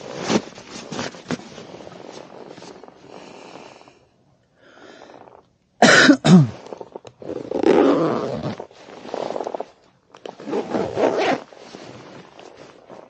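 Irregular wind gusts on the microphone and fabric rustling, with a short grunt about six seconds in that falls in pitch.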